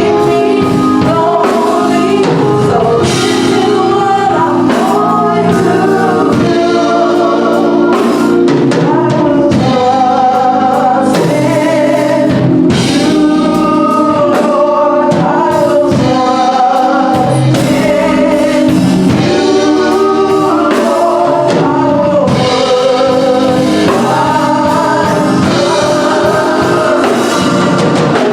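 Gospel music: a vocal group singing over sustained keyboard chords and drums.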